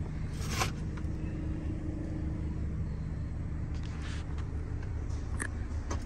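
Ford Transit Connect van's engine idling steadily, a low even hum heard from inside the cab, with a few light clicks.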